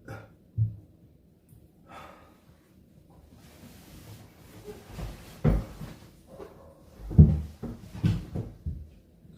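A person letting out several short, low burps, spaced out with quiet between, the loudest about seven seconds in.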